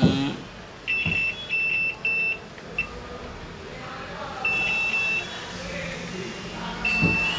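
Digital multimeter's continuity buzzer giving short, intermittent beeps of one steady high tone as the test probes touch points on a laptop motherboard. Each beep signals that the probed points are electrically connected. There are several quick beeps at first, a longer broken beep midway, and another starting near the end.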